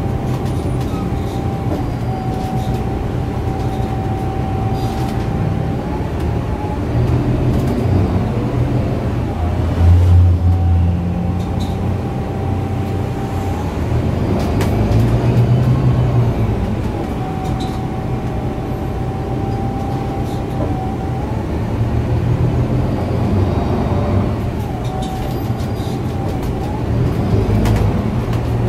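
A MAN A69 city bus's 10.5-litre six-cylinder MAN D2066LUH diesel and Voith DIWA automatic gearbox, heard from inside the passenger cabin while driving. The engine swells in loudness several times as the bus accelerates and eases off. Over it runs a steady high whine that holds for stretches and slides up and down in pitch between them.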